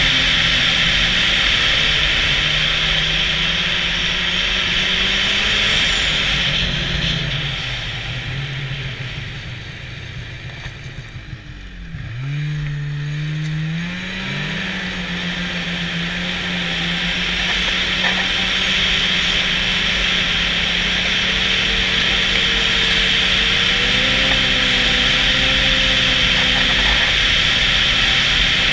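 Snowmobile running along a trail with engine and track noise. It slows to near idle about halfway through, then the engine pitch climbs as it accelerates away and settles back into a steady cruise.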